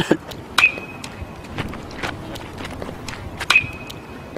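A bat hitting tossed balls twice, about three seconds apart, each crack followed by a high ringing tone for about a second.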